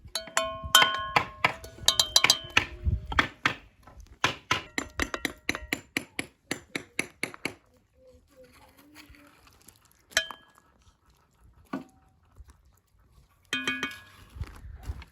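Metal utensils and dishes clinking and knocking. The first strikes ring briefly, followed by a run of quick, even knocks and then a few scattered clinks.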